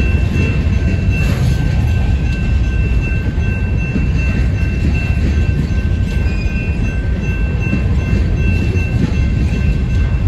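Covered hopper cars of a freight grain train rolling past at steady speed, their wheels rumbling continuously on the rails. A thin, steady high-pitched squeal runs over the rumble.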